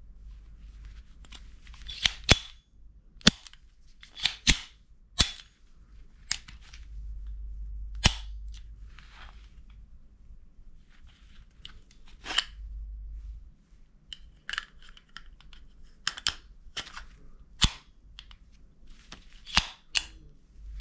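Blow Mini 2003 8mm pistol being handled: about a dozen sharp metallic clicks and clacks from its slide and action, some in quick pairs, with no shots fired.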